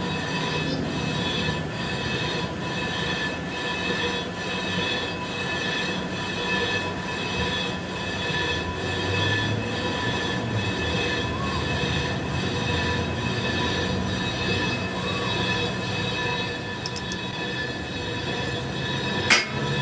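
A steady, high metallic squeal of metal being machined, with several steady ringing tones and a faint regular beat about twice a second. A sharp metallic knock comes right at the end.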